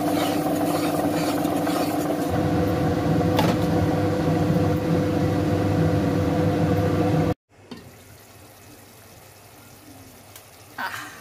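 Red chilli and garlic masala sizzling in a pot as it is stirred, over a steady hum; about two seconds in, a deeper rumble joins the sizzle. About seven seconds in the sound cuts off abruptly, leaving quiet room sound with one brief knock near the end.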